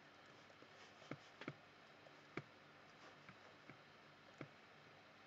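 Faint computer-mouse clicks, a handful at irregular intervals, over near-silent room tone.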